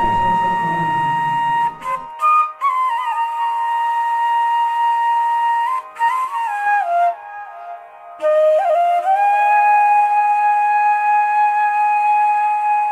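Solo flute background music: long held notes joined by quick sliding, ornamented runs that step down in pitch around three and six seconds in, settling on a lower held note from about nine seconds.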